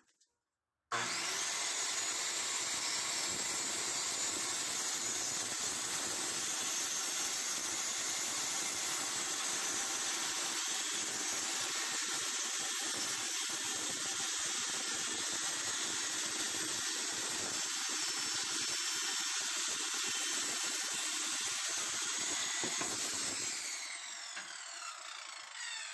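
Bosch GKS 150 1500 W circular saw starting up about a second in and cutting steadily through thick plywood at a 45-degree bevel. Near the end the trigger is released and the blade winds down, its pitch falling.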